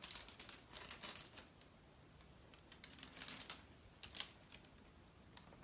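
Faint, scattered crinkles and light clicks of a thin black plastic bag being handled.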